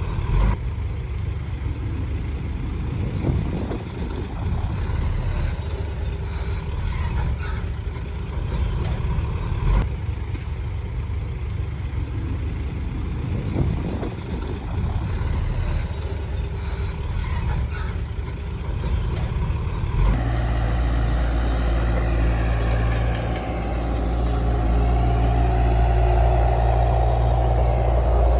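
Heavy diesel engine of earthmoving machinery running, with occasional knocks and clanks. About twenty seconds in, it changes to a louder, steadier engine note with a whine that rises and falls.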